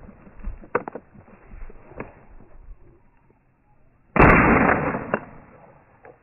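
A single loud shotgun shot fired at a flushed gamebird about four seconds in, its blast dying away over about a second.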